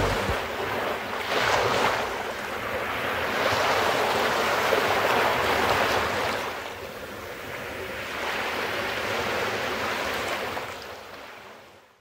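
Sea waves washing onto a sandy shore, swelling and ebbing about three times, then fading out near the end.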